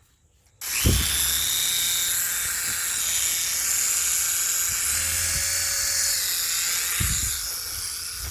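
Small toy emoji helicopter's electric motor and rotor whirring with a steady high whine, starting about half a second in. Low bumps come about a second in and again near the end.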